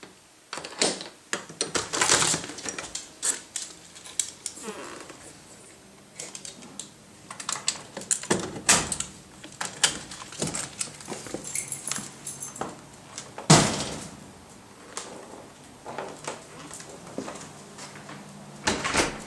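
Keys jingling and a door being opened: a string of clicks, rattles and knocks, with one loud bang about two-thirds of the way through.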